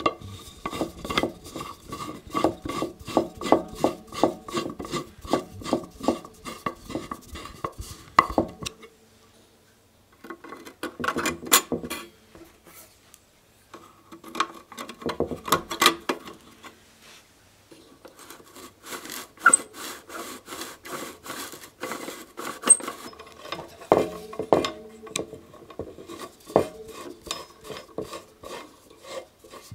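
Metal clicking and scraping as a screwdriver turns screws and the metal parts of a Beatrice No.33 paraffin stove are fitted together. The clicks come quickly and evenly, about three a second, with short pauses in between.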